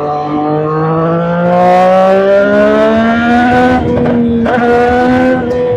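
Triumph motorcycle engine accelerating hard through its exhaust: the engine note climbs steadily for over three seconds, breaks twice briefly about four seconds in, then holds a steady pitch.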